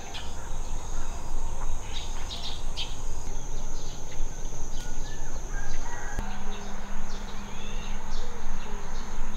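Insects trilling steadily in one high, unbroken tone, with short bird chirps scattered over it and a low rumble underneath.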